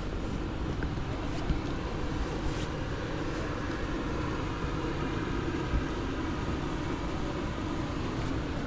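City street traffic: a steady rumble of passing vehicles, with one engine's hum growing a little stronger through the middle.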